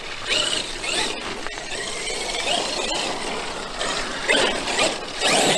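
Traxxas X-Maxx RC monster truck's brushless electric motor whining, its pitch rising and falling several times as it is throttled on and off.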